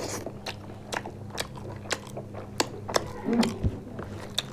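Close-miked eating of fried chicken: chewing and biting with irregular sharp clicks and crunches, about two a second, over a steady low hum.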